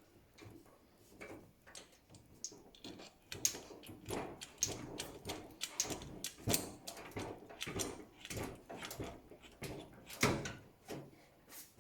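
Irregular light clicks and knocks of hands handling parts, a few a second, with a louder knock about halfway through and another near the end.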